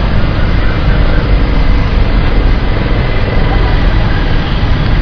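Loud, steady road traffic noise.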